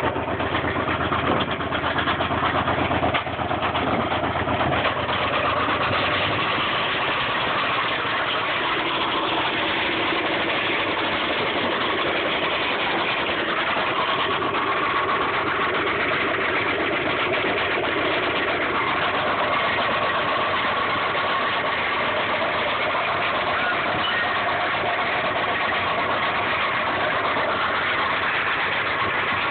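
1995 Subaru Impreza's flat-four engine running with a rod knock that persists after an oil change and oil additives. The lower, heavier running in the first six seconds or so settles to a steady, even run.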